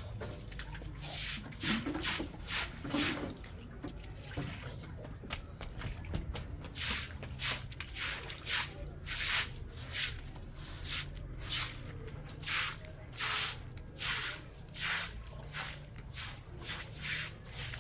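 Fetal heartbeat played through an ultrasound machine's Doppler speaker: a steady rhythm of whooshing pulses, about two a second, over a low hum.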